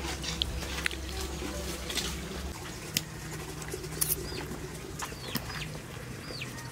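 Outdoor ambience with small birds giving short high chirps that fall in pitch, four or so in the second half, over scattered light clicks and taps. A low hum stops about a third of the way in.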